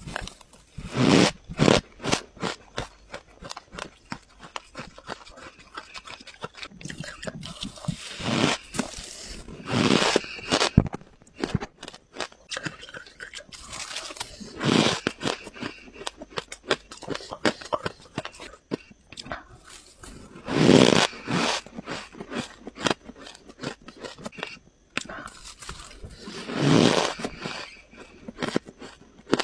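Freezer frost being bitten and chewed close to the microphone: a loud squeaky crunch of packed frost every few seconds, with constant fine crackling of chewing in between.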